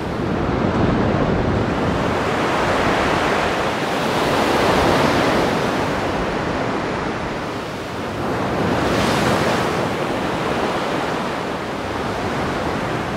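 Ocean surf: waves rushing in, swelling and easing every few seconds.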